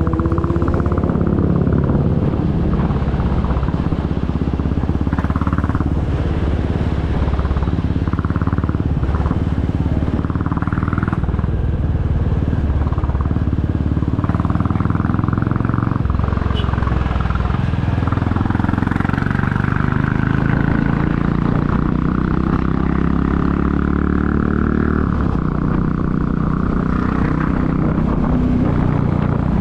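2022 Royal Enfield Classic 350's single-cylinder engine and exhaust running under way, its pitch shifting with throttle and gears and climbing steadily over the last third.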